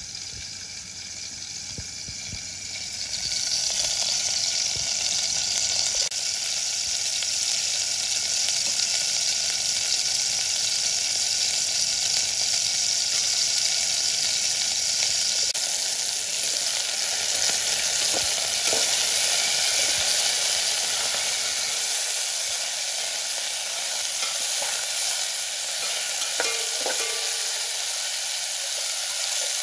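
Small pork meatballs sizzling in hot oil in an aluminium pot, the sizzle building over the first few seconds and then holding steady. In the second half, a metal ladle stirs them with a few short knocks against the pot.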